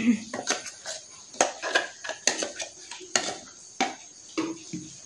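Steel spoon scraping and clinking against the inside of a steel mixer-grinder jar while scooping out ground coconut paste: a string of irregular clinks and short scrapes, about two a second.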